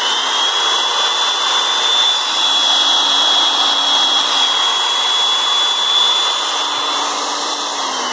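Hitachi SP18 electric polisher, a 180 mm, 100 V machine, running with no load: a steady high motor whine with fan rush. It comes up to speed in the first second, then falls in pitch near the end as it winds down.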